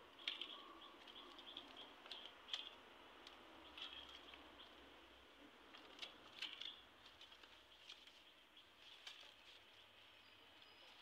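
Dried coconut palm leaflets rustling faintly as they are folded and tucked by hand into a woven mat, with scattered sharp crackles at irregular moments.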